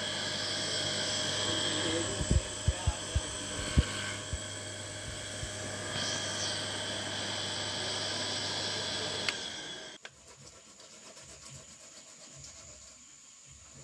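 A small electric motor running steadily, with a few knocks a couple of seconds in, then cutting off suddenly about ten seconds in.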